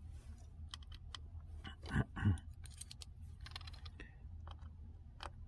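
Small scattered clicks and taps of a precision screwdriver and its bits being handled and set to a screw, with two dull knocks close together about two seconds in.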